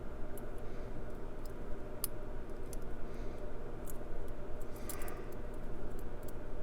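Lockpick and tension wrench working the pins inside a Brinks 50mm padlock's keyway under light tension: scattered small metallic ticks and scrapes at irregular intervals, over a steady low hum.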